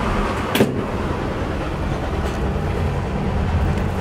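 Steady low rumble of a moving vintage passenger rail car heard from inside its sleeper room, with a single sharp knock about half a second in.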